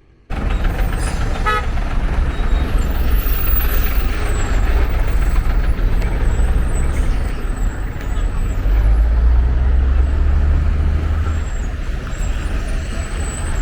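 Busy road traffic with a heavy, steady low rumble from trucks and buses, a vehicle horn tooting about a second and a half in, and the rumble swelling as a heavy vehicle passes near the end.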